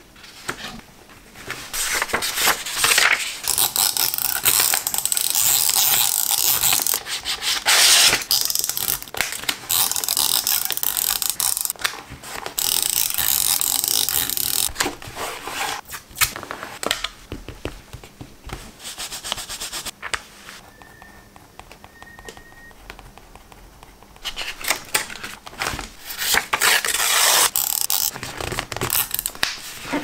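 Close-miked paper and washi tape being handled for a journal collage: tape peeled and torn, and pieces rubbed flat onto the page with the fingers. The sound comes in long scratchy rubbing stretches, with a quieter spell in the middle.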